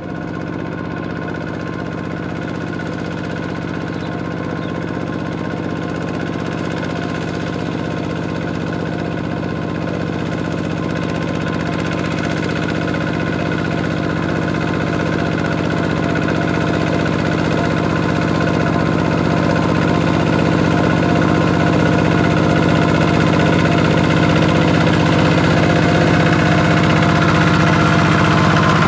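Kubota two-wheel walking tractor's single-cylinder diesel engine running steadily under load as its cage wheels plow through a flooded rice paddy, growing gradually louder as it comes closer.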